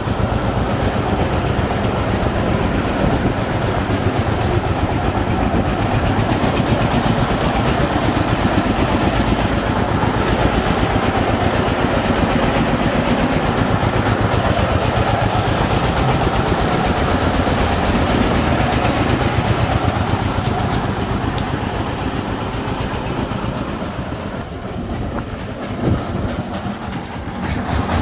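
Single-cylinder diesel engine of a home-built công nông three-wheeler running steadily with a fast, even chugging beat. It eases off somewhat near the end, with a single knock just before.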